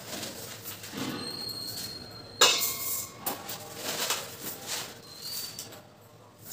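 Stainless-steel kitchen vessels clinking and scraping, with a sharp metallic clang about two and a half seconds in that rings briefly.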